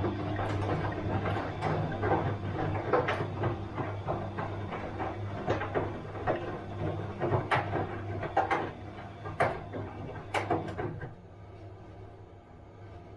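Bosch front-loading washing machine running a wash cycle: a steady motor hum with irregular knocks and clatter as the drum turns the laundry. The tumbling stops about eleven seconds in, leaving a quieter hum.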